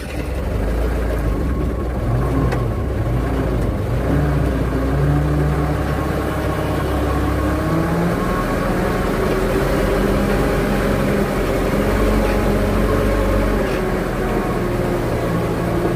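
Motor vehicle engine running as it travels slowly along a rough dirt track, its pitch rising and falling a little with the throttle.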